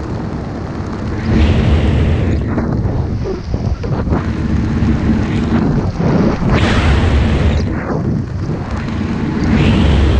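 Wind buffeting an action camera's microphone during parachute canopy flight: a heavy, rumbling rush that surges louder three times, about a second and a half in, around six and a half seconds in, and near the end.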